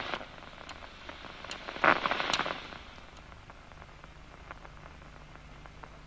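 Audio monitor of a locust's DCMD nerve-cell recording: scattered sharp clicks of single action potentials, with a brief dense crackling cluster of spikes about two seconds in as the neuron fires in response to a moving target spot. A faint low hum sits under the second half.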